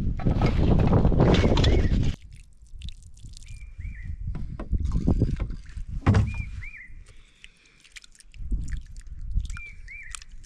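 Water splashing and sloshing, which cuts off suddenly about two seconds in. Quieter handling knocks and a few short, high chirps from a small bird follow.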